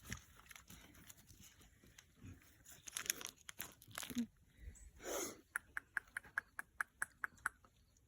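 Pigs chewing hot dogs: scattered crunching and rustling, then a run of quick, regular open-mouthed smacks, about five a second, in the last few seconds.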